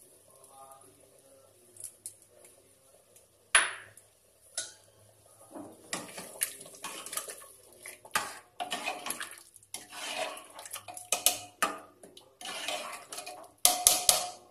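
A steel ladle stirring thick dal in an aluminium pressure cooker pot, with irregular metal-on-metal clinks and scrapes against the pot's sides. There is a single sharp clink about three and a half seconds in.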